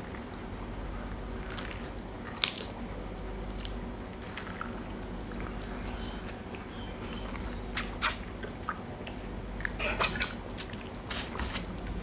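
People eating crab: soft chewing with scattered small clicks and clinks that grow busier near the end, over a steady low hum.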